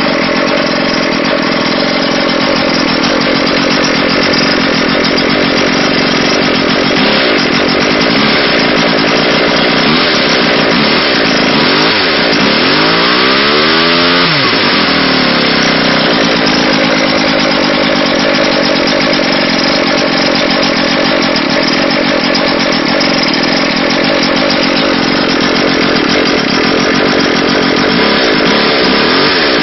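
Wankel rotary-engine chainsaw running loudly and continuously, with a shifting, wavering tone about halfway through.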